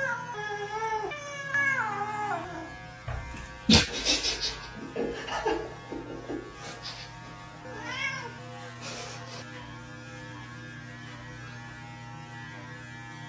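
A pet's drawn-out cries, several falling in pitch, then a loud knock about four seconds in and a short rising cry near eight seconds, over a steady electrical hum.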